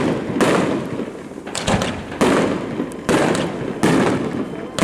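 Fireworks bursting in quick succession: about six loud bangs, roughly one every second or less, each trailing off before the next.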